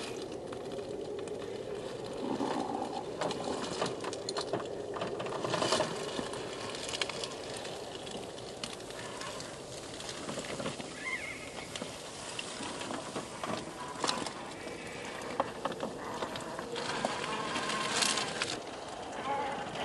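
Traxxas TRX-4 1/10-scale RC rock crawler inching over rock: a low whine from its electric motor and geartrain, with the tyres crunching and scraping on stone and dry pine needles in scattered clicks.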